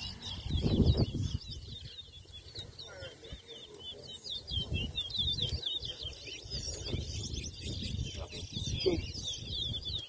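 Towa-towa (chestnut-bellied seed finch) singing in quick, continuous chirping phrases, as in a whistling competition race. A low rumble, loudest about a second in, sits under the song.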